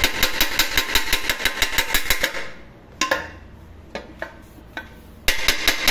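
Small hammer rapidly tapping a handle rivet from inside an aluminium pressure cooker, about seven ringing strikes a second, peening the rivet against a dolly held outside so the joint will not leak. The hammering pauses after about two and a half seconds for a few single taps, then resumes fast near the end.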